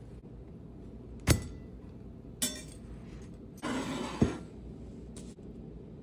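Kitchenware clinking: three sharp clinks of a utensil against a ceramic plate, the second with a short ring, and a brief scrape just before the third, over a steady low hum.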